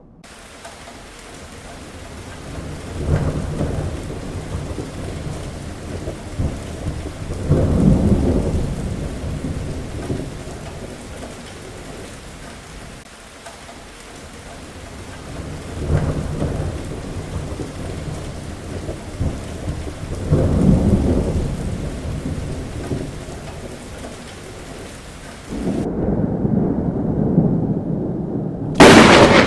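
Heavy rain hissing steadily while thunder rolls in low rumbles several times. Near the end comes a sharp, loud thunderclap.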